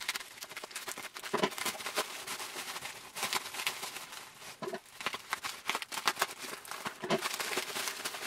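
Scissors cutting through bubble wrap, then the plastic wrap crinkling and crackling irregularly as hands pull it open.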